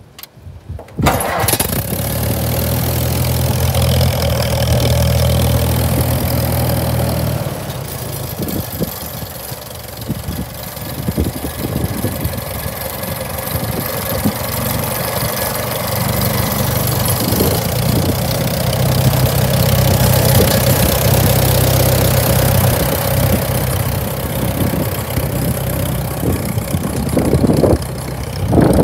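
1950 Allis-Chalmers WD tractor's four-cylinder gasoline engine catching about a second in, then running steadily at idle.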